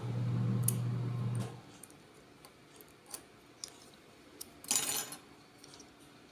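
Small clicks and clinks of the plastic and metal parts of an opened two-pole wall switch being handled, with one louder brief scrape about five seconds in. A low steady hum runs for the first second and a half.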